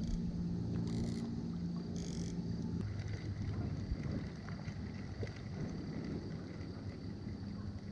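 Small boat motor running with a steady hum that drops to a lower pitch about three seconds in, with two brief hisses about one and two seconds in.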